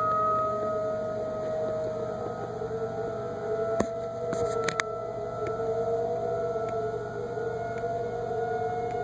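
Federal Signal 2001 electromechanical outdoor warning siren sounding a near-steady tone that wavers slightly in pitch and level during a routine monthly test. A couple of faint sharp clicks come about halfway through.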